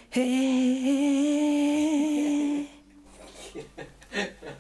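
A voice humming one long held note with a slight waver, lasting about two and a half seconds, then a brief faint sound about four seconds in.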